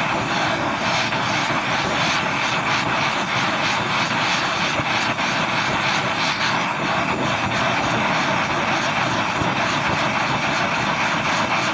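Handheld Bernzomatic gas torch burning with a steady flame roar, heating the aluminium crankcase half's bearing bore to expand it for fitting a bearing.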